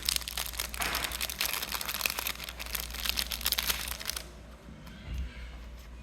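Wrapper of a trading card booster pack crinkling and crackling as it is torn open and handled, a dense run of crackles that stops about four seconds in.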